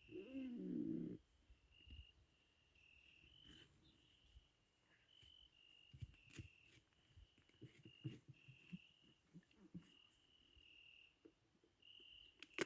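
Crickets chirping, a high chirp repeating steadily, with faint knocks and scrapes in the middle.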